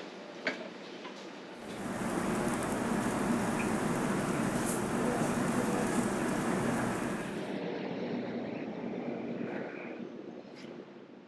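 Commercial gas rotisserie oven running: a steady, loud hiss of the gas burners and sizzling chickens that sets in about two seconds in and eases off after about seven seconds. Near the start there are a couple of sharp metal clicks from the spits.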